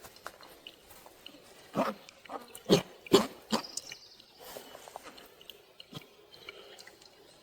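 Cooked rhubarb pulp squelching as it is pressed down in a strainer, juice draining through; a few separate squishes come about two to three and a half seconds in.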